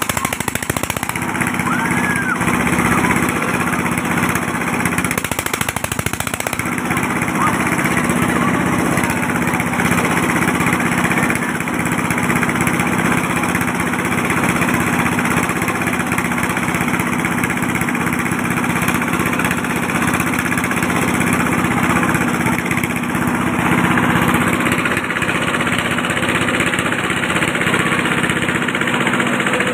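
An engine running steadily with a constant, even hum that doesn't rise or fall.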